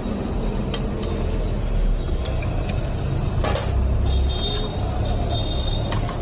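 Steady low rumble of street traffic, with a few sharp clicks and knocks, the loudest about three and a half seconds in, as a metal spatula sets a mesh pizza pan down on a counter.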